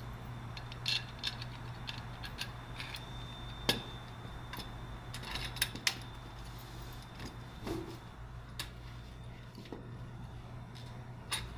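Metal trampoline safety-net post parts and bolt clicking and knocking as they are handled and fitted to the frame leg: scattered sharp clinks, the loudest a little under four seconds in, over a steady low hum.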